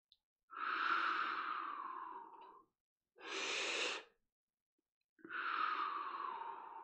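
A man taking deep, audible breaths during a breathing exercise: a long breath that fades out, a short one, then another long one beginning near the end.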